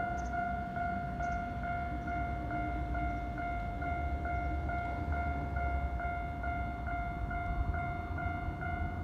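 Japanese railway level-crossing warning bell ringing in a quick, steady repeating tone, with the low rumble of a Keikyu train underneath that swells about four seconds in.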